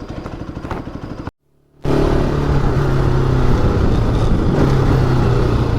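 Motorcycle engine ticking over quietly, cut off abruptly about a second in. After a short gap the motorcycle's engine is running steadily and loudly while riding, with road noise over it.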